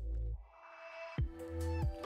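Background electronic music with a heavy bass beat; the bass drops out about half a second in under a short rising swell, then the beat comes back in just after a second.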